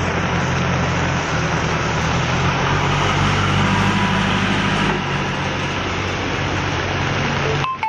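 Diesel engine of a JCB backhoe loader running close by, its low, steady note under the heavy hiss of rain on the road. The sound cuts off abruptly near the end.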